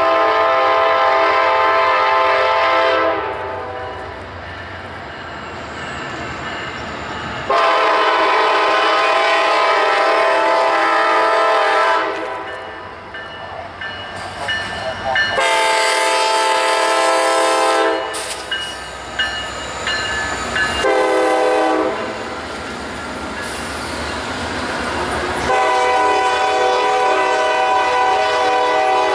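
EMD SD70M diesel locomotive's multi-chime air horn sounding a series of blasts: one ending about three seconds in, a long one, two shorter ones, then a long one near the end. Between blasts the train rumbles by, with wheels clicking over rail joints as the tank cars roll past near the end.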